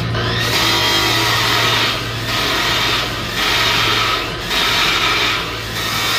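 Abrasive chop saw's cut-off disc grinding into a steel box-section tube over a steady motor hum, in about five cuts of roughly a second each with short dips between as the blade is lifted and the tube moved on. It is cutting a row of relief notches along the tube so that it can be bent into a round arch.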